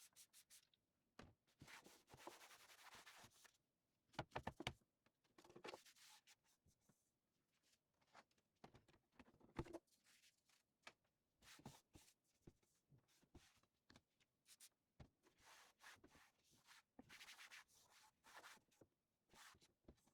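Cutlery and other drawer contents being handled and sorted: scattered light clicks and clinks, a few sharper knocks about four and ten seconds in, and stretches of rubbing and scraping.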